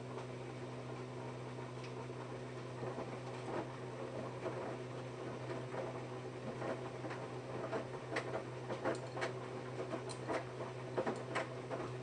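Samsung Eco Bubble front-loading washing machine running a wash cycle: a steady motor hum under an irregular patter of soft clicks as wet laundry tumbles in the drum, getting busier in the second half.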